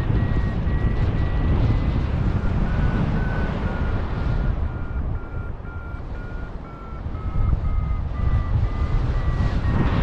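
A paragliding variometer beeping in a quick run of short tones that shift in pitch with the climb rate while thermalling, its pitch dropping somewhat in the second half. Steady wind rushes across the microphone and eases briefly a little past the middle.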